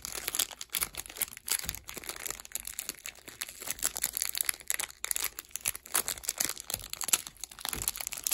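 Plastic wrapping crinkling and crackling in the hands as a new speedcube is unwrapped, with many quick irregular crackles.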